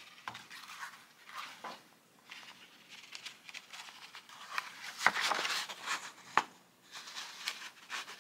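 Paper pages and the card cover of a soft-cover journal rustling and brushing as the book is handled and the thread is drawn through the fold during chain-stitch sewing, with a few sharp crinkles, the loudest about five and six seconds in.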